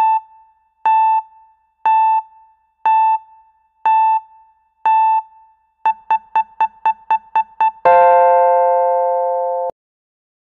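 Synthesized beeps in a countdown pattern: six evenly spaced high beeps about a second apart, then eight quicker beeps at about four a second, then one long, lower chord tone held almost two seconds that cuts off suddenly.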